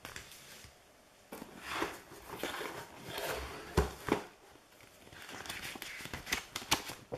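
Folded paper playmat rustling and scraping as it is slid out of a cardboard toy box and unfolded, with a couple of dull knocks about four seconds in and sharp paper crackles near the end.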